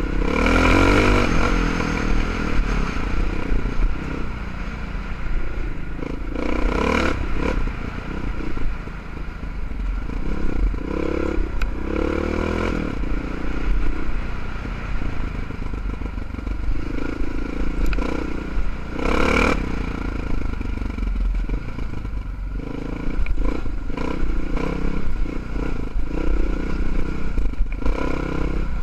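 Honda XR650R's single-cylinder four-stroke engine running as the bike rides over a rough stony track, with stones clattering and scraping under the tyres. Several loud bursts of rushing noise come and go along the way.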